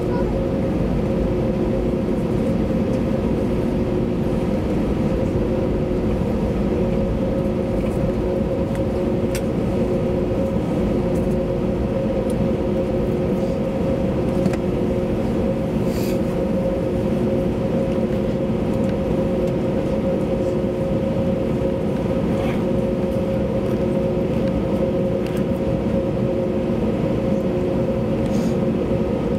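Cabin noise inside an Airbus A321-200 taxiing after landing: a steady drone from the engines at idle and the cabin air, with two steady hum tones, and a few faint clicks.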